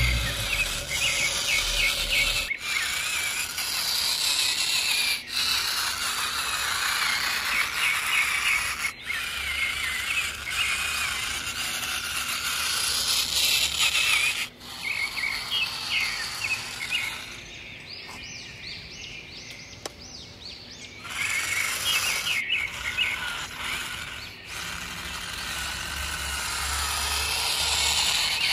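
Small birds chirping over and over against a steady outdoor hiss. A quick run of higher chirps comes about two-thirds of the way through, and the sound breaks off sharply several times.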